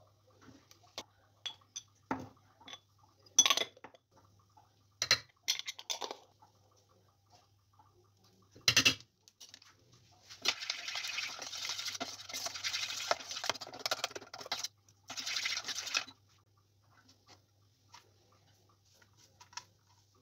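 A metal spoon clinking against a stainless steel pot in a few sharp taps, then, from about ten seconds in, a fork stirring a thick batter in the pot for about five seconds, scraping and rattling against the metal.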